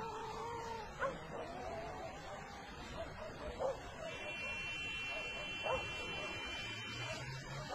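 An animal's short, sharp calls, about four of them roughly two seconds apart, over steady background noise. A thin, steady high tone sounds through the middle and stops about a second before the end.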